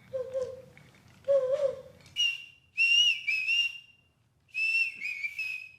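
Whistled imitations of bird calls. First come two short low warbling phrases, then, after about two seconds, higher, clearer whistled notes in two bursts of a few notes each.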